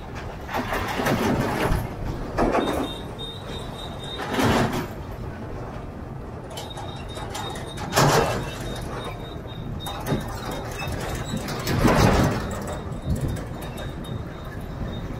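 Highway traffic noise: a steady rumble of tyres and engines, with about five louder whooshes of trucks and motorbikes passing close by.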